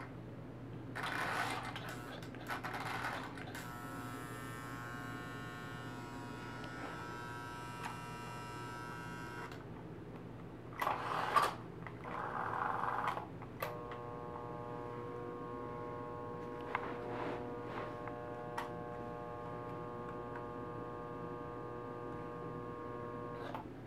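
A vintage Lionel electric model train running on its track: a steady motor buzz over a constant mains hum, with two louder rushes of noise about a second in and again about eleven seconds in.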